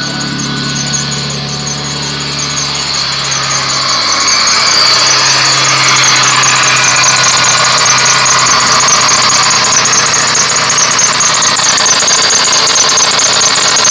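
1999 Ford Taurus 3.0-litre Vulcan V6 idling just after starting, with a high, rapid, rhythmic squeak from the engine that builds over the first few seconds and then holds steady. The squeak persists even though the belt, idler pulley, tensioner pulley and alternator have all been replaced.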